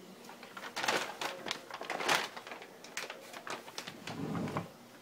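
Brown paper bag crackling and rustling in quick, irregular bursts as an orange tabby cat shifts around inside it, ending in a duller, lower rustle a little after four seconds in.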